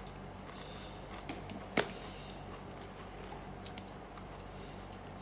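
Quiet room tone with a steady low hum, broken by one sharp click nearly two seconds in and a few faint ticks.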